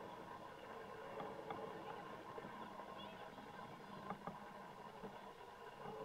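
Faint ambience at a youth soccer game: a steady low hum with distant voices, and a few short knocks, the loudest two about four seconds in.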